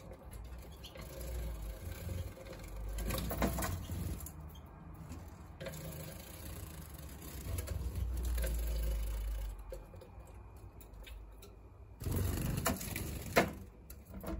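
Young Gould and zebra finches splashing and fluttering in a clip-on plastic cage bath. The splashing comes in irregular bursts and is loudest in a flurry near the end.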